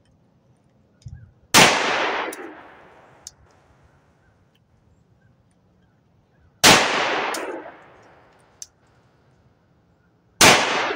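Three slow, aimed shots from a Walther PPQ 9mm pistol, about four to five seconds apart, each with a short echoing tail. A small sharp click follows a couple of seconds after each of the first two shots.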